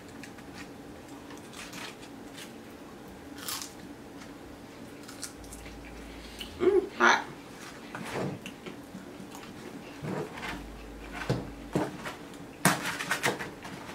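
Cardboard takeout boxes and fried chicken being handled: scattered soft crinkles, taps and rustles, with a denser run of cardboard rustling near the end as a box lid is pulled open.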